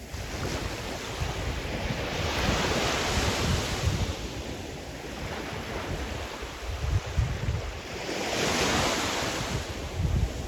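Sea surf: waves breaking and washing in, swelling twice, with wind rumbling on the microphone.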